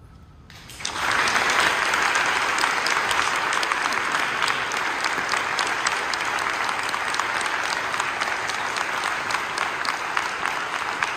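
Audience applause starting suddenly about a second in, after a short quiet moment at the end of the song, then continuing as steady clapping.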